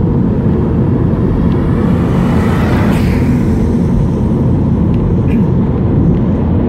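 A 2014 Mini Cooper S (2.0-litre turbo petrol, F56) driving past, its engine and tyre noise swelling to a peak about three seconds in and then fading, over a steady low rumble.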